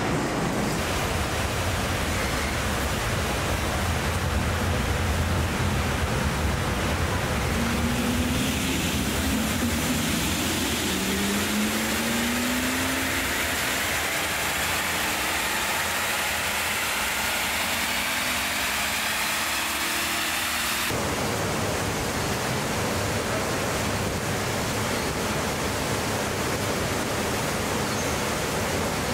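Steady hiss of factory hall noise. From about eight seconds in, rising whines as a BMW iX electric SUV runs its wheels up to speed on a roller test stand. The whines stop abruptly about two-thirds of the way through, leaving the steady hiss.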